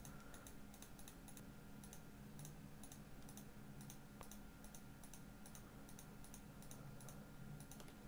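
Faint computer mouse clicks, about two or three a second, placing mask points one after another, over a low electrical hum.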